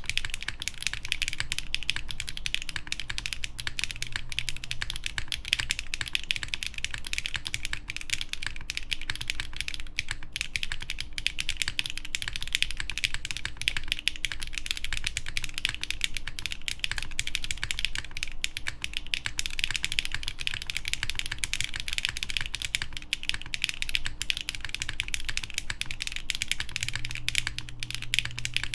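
Steady, fast typing on an Ikeygai Albatross TKL mechanical keyboard: HMX Sunset Gleam linear switches bottoming out on a polycarbonate plate under GMK keycaps, in a dense, unbroken run of keystrokes.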